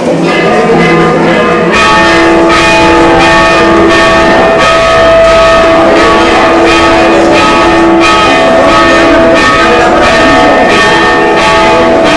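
Bells ringing loudly, struck over and over about twice a second, with the ringing tones held between strikes.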